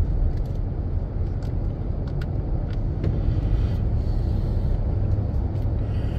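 Pickup truck cruising at highway speed, heard from inside the cab: a steady low rumble of engine and tyre noise.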